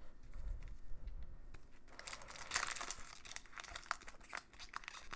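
Foil hockey card pack wrapper crinkling and tearing as the pack is opened, starting about two seconds in.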